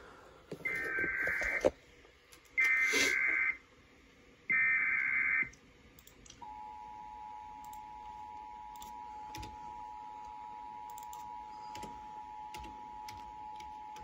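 Sage EAS ENDEC sending an Emergency Alert System header: three short bursts of screechy data tones about a second apart, then the steady two-tone EAS attention signal from about six seconds in, which announces the alert's spoken message.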